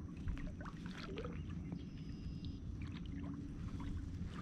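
Quiet sounds aboard a kayak on a lake: a steady low rumble with scattered small ticks and knocks, and a faint thin high tone lasting under a second about two seconds in.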